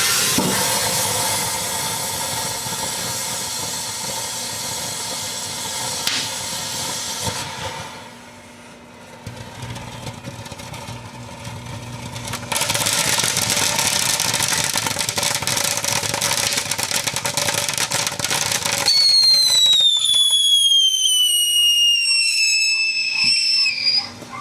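Fireworks burning inside a microwave oven: a loud spraying hiss with crackle, a quieter lull near the middle, then loud hiss again. Over the last few seconds a whistle glides steadily downward in pitch before cutting off.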